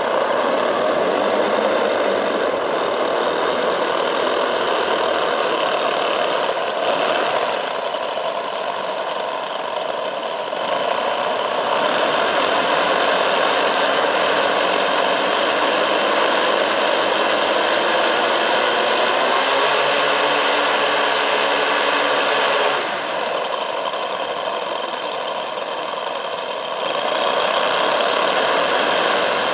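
Several small OS model engines of a 1:10 Dornier Do X RC flying boat running together on the ground, a steady buzzing drone. It drops a little in level twice, for a few seconds each time.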